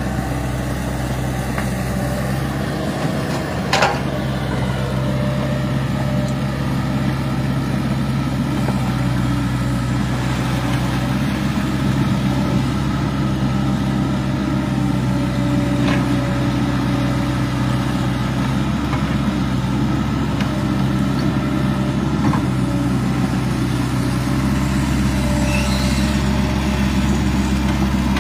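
Hydraulic crawler excavator's diesel engine running steadily as the machine works in deep water and mud, with a single sharp clank about four seconds in.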